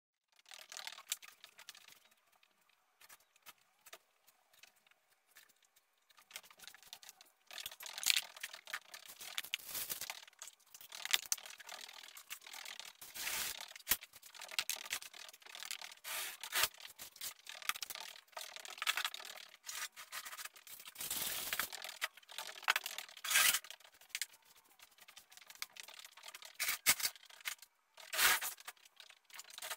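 Irregular rustling, scraping and clicking of objects being handled and moved about by a person, with occasional sharper knocks; sparse for the first several seconds, then busier.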